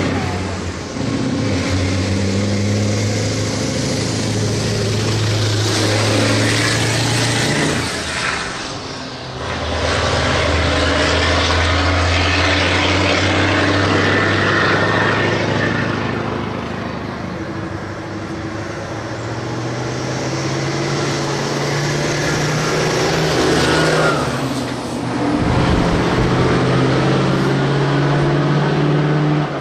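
Dakar rally trucks' diesel engines running hard under full throttle, the pitch climbing and then dropping sharply at each gear change, several times over.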